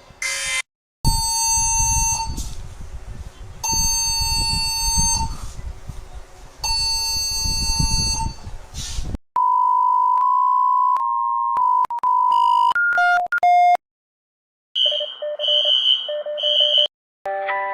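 A run of electronic emergency-alert tones. First come three repeated beeping bursts with a buzzy data-like hash. Then a steady beep breaks into quick stepping beeps, and after a short gap comes a pulsing high-and-low beep pattern.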